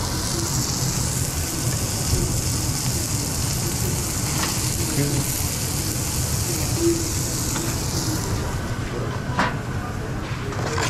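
Beef patties sizzling on a flat-top griddle over a steady low kitchen hum, with a few light metal clinks. The sizzle drops away about eight seconds in.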